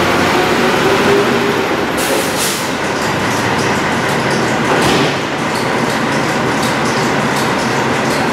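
Engine of a 1987 Ford C-Series garbage truck running loud and steady just after starting up, still blowing smoke from its exhaust stack. A ticking clatter rides over the running sound from about two seconds in. The sound rings off the walls of a metal garage.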